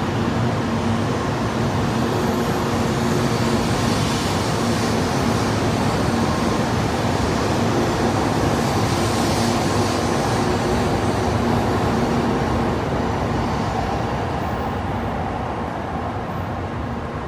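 Kyushu Shinkansen 800 series train pulling out of the station with its cars passing close by: a steady rolling rumble carrying a few steady humming tones. The noise eases off a little in the last few seconds.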